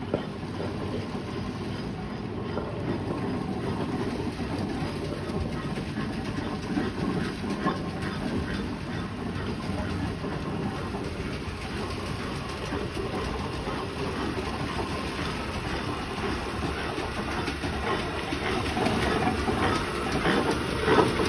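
Aveling & Porter road roller running: a steady mechanical rumble with clattering that grows louder near the end.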